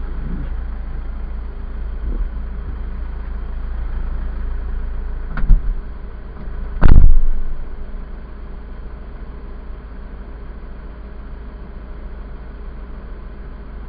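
Mitsubishi Fuso Canter truck's diesel engine idling steadily. A short knock comes about five and a half seconds in, and a loud thump about a second later.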